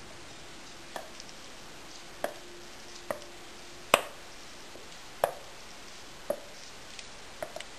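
Spatula tapping against a glass bowl and a metal cake tin while thick semolina batter is scraped out and spread: short, sharp knocks about once a second, seven in all.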